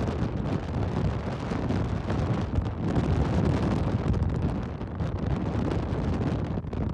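Hurricane-force wind buffeting the microphone: a continuous, heavy rumble of wind with wind-driven rain and spray, strongest at the low end and swelling and easing slightly.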